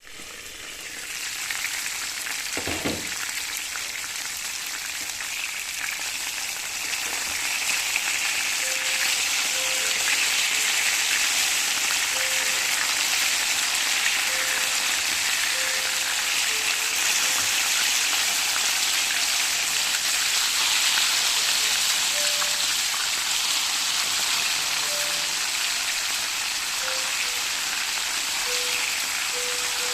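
Chicken wings frying in hot oil: a steady crackling sizzle that builds over the first several seconds and then holds. A short low thump comes about three seconds in.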